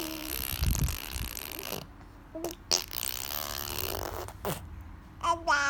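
A baby blowing raspberries, a spluttering buzz of the lips that sprays spit, with the baby's own vocal sounds near the end.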